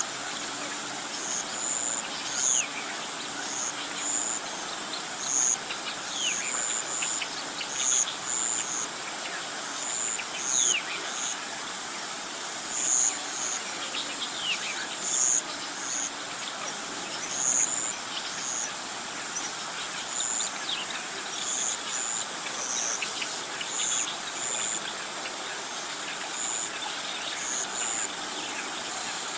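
Outdoor dusk chorus of birds and insects: short, high chirps repeating irregularly about once or twice a second, with a few brief falling bird calls over a steady hiss.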